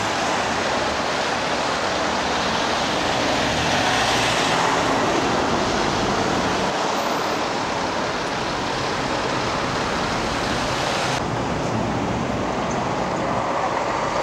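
Steady rushing roar of busy road traffic. About eleven seconds in it turns duller as the high hiss drops away.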